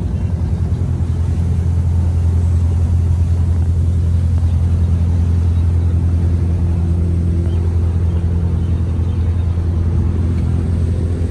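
Passenger boat's engine running at a steady low drone as the boat comes in to dock.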